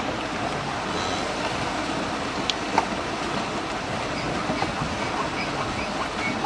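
Steady, dense clattering rumble of a large wildebeest herd on the move during a river crossing, many hooves sounding together.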